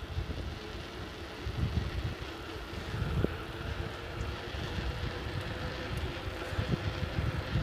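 Wind buffeting the microphone of a moving bicycle, with uneven low gusts over a steady rushing noise from the ride.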